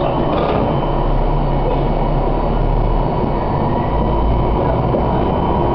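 Diesel railcar engine running with a steady low hum while the train stands or barely creeps forward. The low engine note changes about four seconds in.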